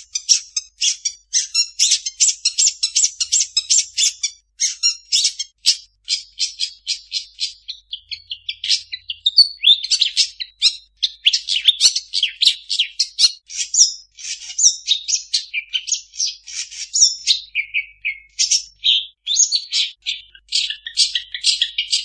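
Long-tailed shrike (cendet) singing a fast, unbroken stream of short, high-pitched chattering notes. The song is full of mimicked calls of other birds, and near the end it runs into a fast, even trill.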